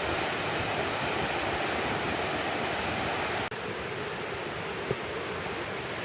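Waterfall water rushing in a steady, even roar of noise. A bit past halfway the sound changes abruptly, turning slightly quieter and duller.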